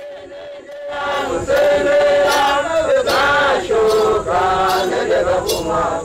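Hadzabe dancers singing a traditional dance song. One voice holds a single note, then about a second in a group of voices joins in a loud chant.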